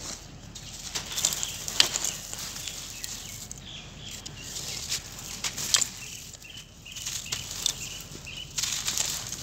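Dry sand-cement dust and small pebbles being rubbed and sifted by hand through a spiral wire grille: a gritty rustling hiss of falling dust, with a couple of sharp clicks of grit against the wire.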